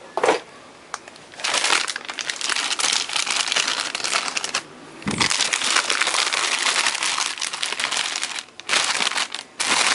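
Clear plastic bag crinkling and rustling in spells with short breaks as a motherboard is unwrapped from it, after a thump just at the start.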